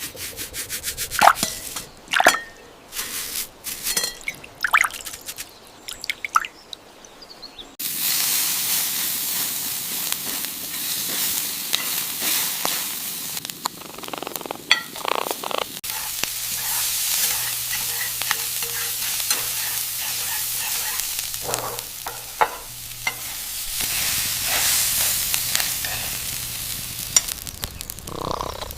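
Kitchen cooking sounds: sharp clicks and knocks of utensils for the first several seconds, then from about eight seconds in a steady sizzle of food frying in a pan, with stirring and clattering over it.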